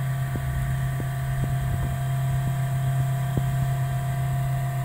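Steady machine hum, like fans or motors running, with a few faint light clicks.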